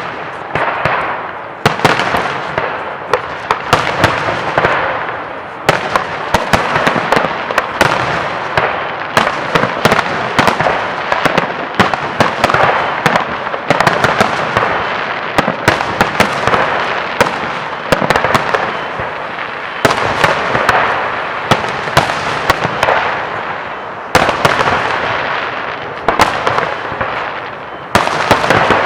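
Fireworks display: a continuous barrage of shells bursting, with many sharp bangs several times a second over a steady crackle.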